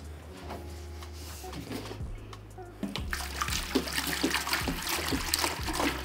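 Water poured from a large plastic canister straight into the open reservoir of a HOBBY Easy Rain misting system: a few seconds of quiet handling, then a steady splashing gush that starts about three seconds in.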